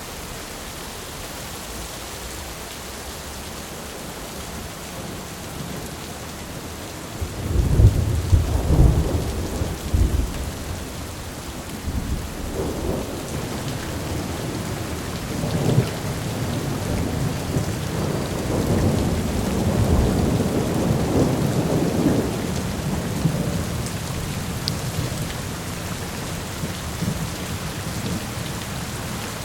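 Steady rain falling, with a loud roll of thunder breaking in about a quarter of the way through and rumbling on in waves for about fifteen seconds before fading back under the rain.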